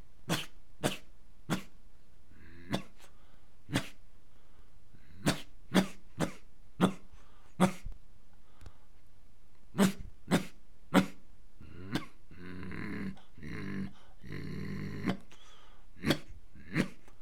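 A man imitating a dog with short, sharp barks, single or in quick runs of two and three, and a longer drawn-out throaty sound lasting about three seconds, starting about twelve seconds in.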